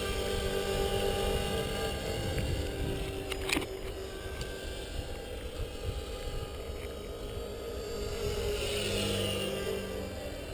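Align T-Rex 450 Pro radio-controlled electric helicopter, in an EC135 scale fuselage, flying overhead: a steady whine from its motor and rotors that swells briefly near the end, over wind rumbling on the microphone. A single click sounds a few seconds in.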